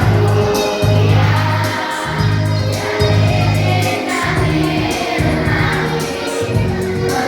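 A choir singing a song, held notes changing about once a second.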